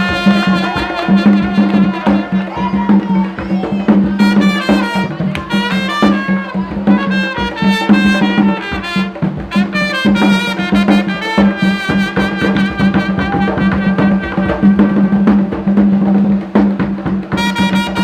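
Live band playing an instrumental passage: a brass section of trumpets and trombones plays short melodic phrases over drums and a steady low bass.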